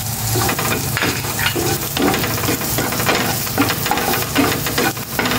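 Chopped garlic sizzling in hot cooking oil in a frying pan, stirred with a wooden spatula that scrapes across the pan; the frying hiss is dotted with many small crackles.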